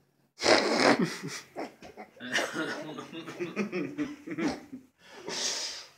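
A man laughing in broken bursts, ending in a breathy burst near the end.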